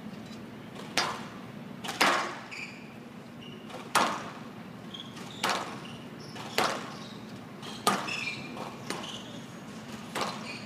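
A squash rally: the ball smacks off racquets and the court walls about eight times, roughly once every second or so, each hit ringing briefly. Short shoe squeaks on the court floor come between the hits.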